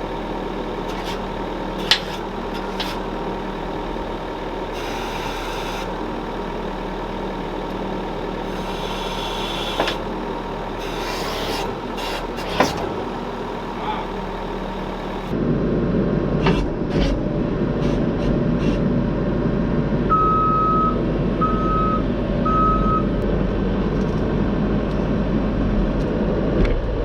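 Skid steer engine running steadily, with a few sharp knocks and clanks. About halfway through it gets louder, and a few seconds later a reversing alarm beeps three times.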